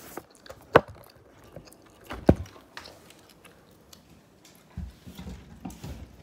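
Handling noise from a phone and packaging being worked at by hand: two sharp clicks, the second about a second and a half after the first, then low rubbing and bumps near the end.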